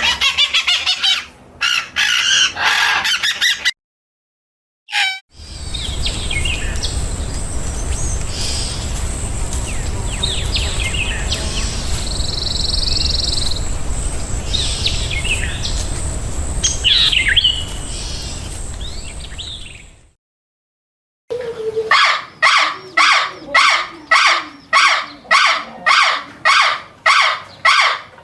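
Birds chirping and calling in short cut-together outdoor clips separated by brief silences. There is a burst of chirps first. Calls follow over a steady low rumble and hiss with a thin, high, steady tone. Near the end a bird repeats a call about twice a second.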